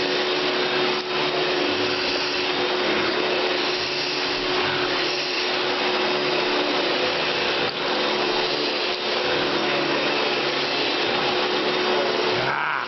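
Vacuum cleaner running steadily: a loud, even rush of air with a steady hum, dipping briefly a few times.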